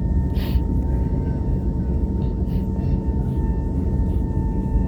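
Airliner cabin noise as the plane taxis after landing: a steady low rumble of the jet engines and airflow with a thin, steady whine above it. A brief rustle about half a second in.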